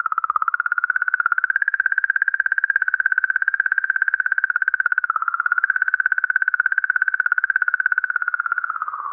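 Sonification of the magnetic-field oscillations in the plasma around Comet 67P/Churyumov–Gerasimenko, measured by ESA's Rosetta probe: a steady, slightly wavering hum made of rhythmic clicking.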